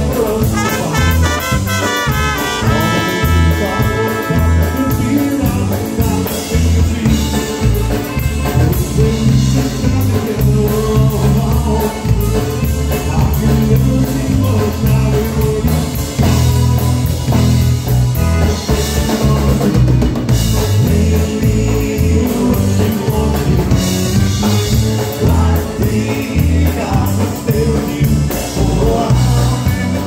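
Live polka band playing: two trumpets lead in the opening seconds over a steady beat from button accordion, electric bass guitar and drum kit.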